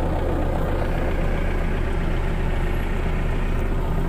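Manitou telehandler's diesel engine idling steadily, heard from inside the cab.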